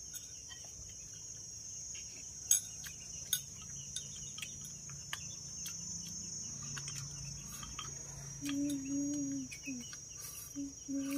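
Steady high-pitched chirring of insects, with scattered light clicks of chopsticks against bowls. A few short pitched sounds come in near the end.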